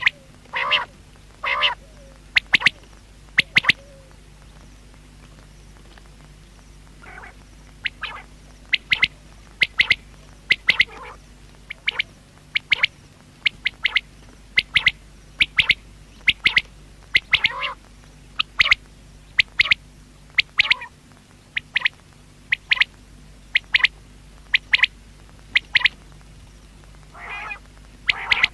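Common quail calling over and over: short, sharp, high whistled notes in quick groups of two or three, with a few lower, rougher calls in between.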